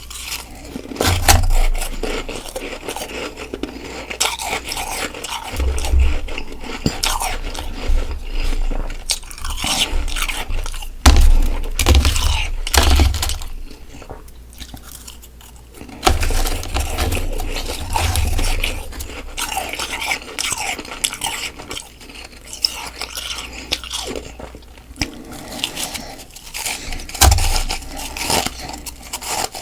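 Close-miked biting and chewing of soft freezer frost: irregular wet crunches and crackles, with dull low thumps now and then.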